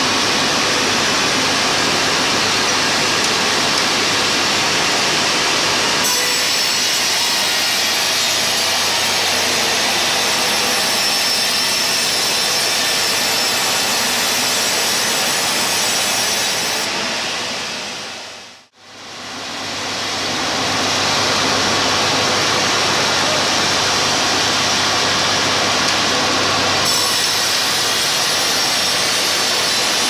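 Band sawmill running and cutting through a log, a loud, steady, even noise. About two-thirds of the way in it fades briefly to silence and comes back.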